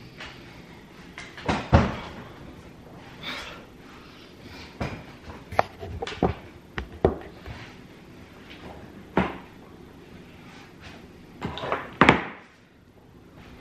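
Irregular knocks and thumps from a pumpkin and carving tools being handled, with a few short scrapes between. The loudest thumps come about two seconds in and near the end.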